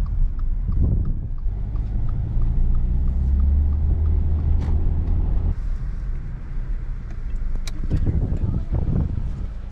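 Car cabin noise while driving: a steady low rumble of engine and tyres, heaviest midway and easing a little after about five and a half seconds.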